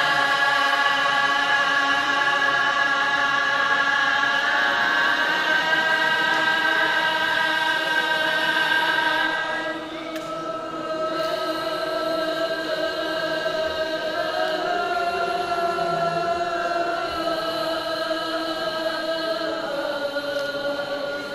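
Balinese dharma gita chanting: devotional verse sung in long held notes that waver and slide slowly, in two phrases with a short break about ten seconds in. The second phrase is pitched lower than the first.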